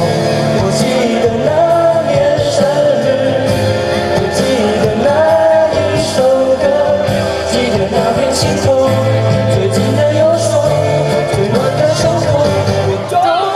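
A singer performing a pop song over an amplified backing track.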